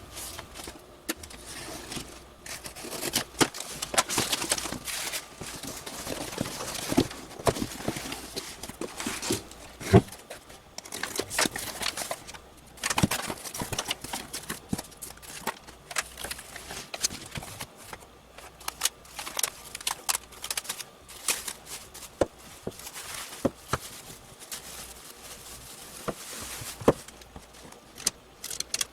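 A package being opened and unwrapped by hand: packing material rustling and crinkling, with scattered sharp clicks and knocks and one louder knock about ten seconds in.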